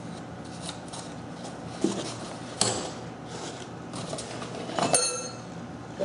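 A cardboard box being handled and unpacked, with a few separate knocks and a short metallic clink near the end, from the metal surface gauge inside it.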